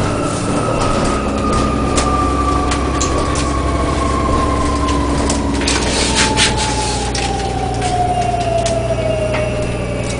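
Inside a moving city bus: the bus runs with a steady low drone, a whine that falls slowly in pitch, and scattered rattles and clicks, with a cluster of clicks about six seconds in.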